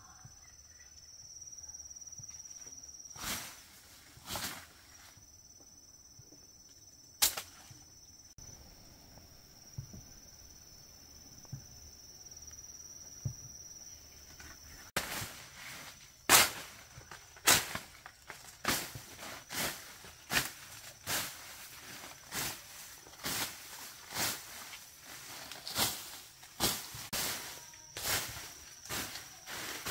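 Insects shrilling steadily on one high note, with a few sharp knocks in the first half. From about halfway, a regular run of sharp knocks, roughly one a second.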